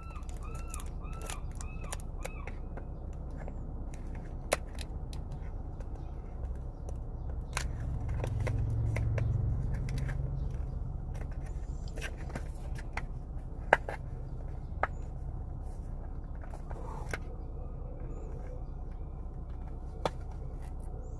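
Scattered small clicks, taps and scrapes of hands handling magnetic fidget putty and its container, over a steady low background hum.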